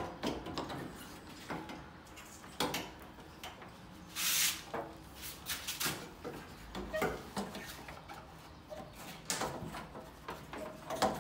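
Irregular knocks, clicks and rattles of a replacement A/C condenser being slid and worked into its mounts in front of the radiator, with a longer scrape about four seconds in.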